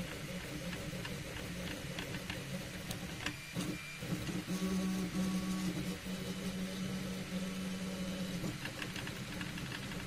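3D printer's stepper motors running, a steady hum with higher whining tones that change pitch as the axes move, with a brief pause about three and a half seconds in.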